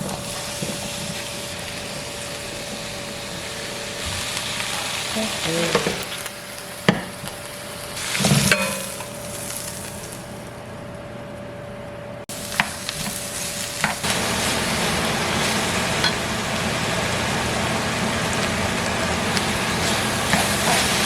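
Food frying and sizzling in a pan, with a few sharp clinks of a utensil; the sizzle gets louder about two-thirds of the way through.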